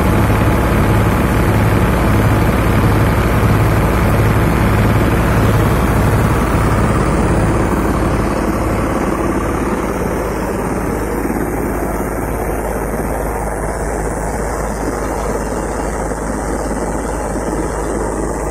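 Farmtrac 60 EPI Powermaxx tractor engine running steadily under load, powering a threshing machine through the PTO while mustard is threshed; the thresher adds a continuous rushing clatter. The engine's low pulse is strongest at first and eases after several seconds, leaving the thresher more prominent.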